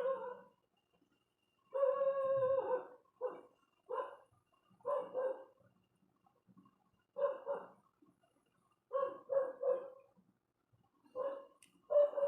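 A dog barking repeatedly: single barks and quick runs of two or three, about a dozen in all, with short pauses between.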